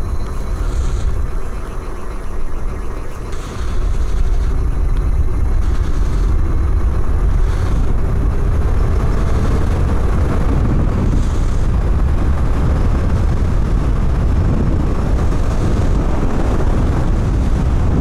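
Wind and road rush from an electric hub-motor e-bike riding at high speed, around 44 mph: a loud, steady, low rumble that gets louder about three and a half seconds in as the bike speeds up.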